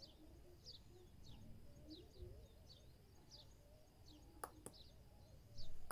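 Faint bird chirps, short falling notes repeating every half second or so. About four and a half seconds in come two sharp clicks close together: the module's tactile push button being pressed to switch the LED load.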